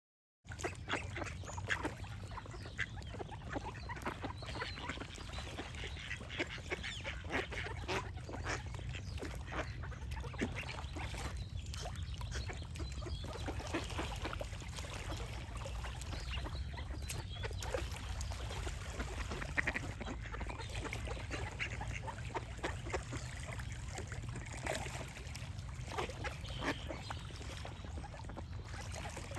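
Ducks quacking repeatedly with short calls, over a steady low rumble, with birds calling.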